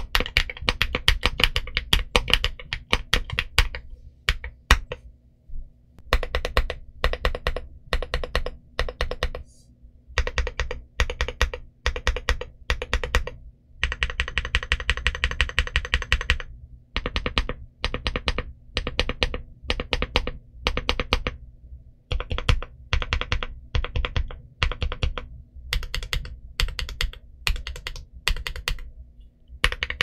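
Typing on an XVX K75 Pro aluminum-case 75% mechanical keyboard with XVX Medium Purple linear switches and PBT Cherry-profile keycaps. Runs of fast keystrokes are broken by short pauses every few seconds.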